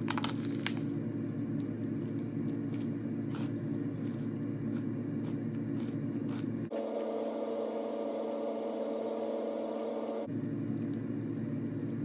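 A person biting into and chewing a bread-and-veggie-patty sandwich, with a few crisp clicks from the bite near the start. A steady low background hum runs underneath and is the loudest sound; it changes abruptly in tone about two-thirds of the way through, then returns.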